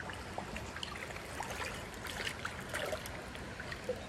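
Creek water running steadily, with light scattered splashes and trickles.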